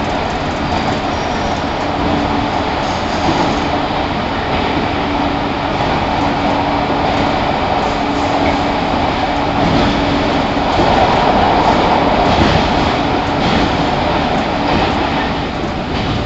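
Running noise inside the KuMoHa 115-1005 motor car of a JR 115 series 1000 subseries electric multiple unit under way, a steady rumble of the motors and wheels on the rails. A faint hum comes and goes over it, and the noise swells a little about two-thirds of the way through.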